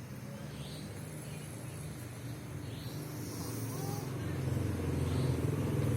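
A sleeping person snoring: a low snore that grows steadily louder through the second half.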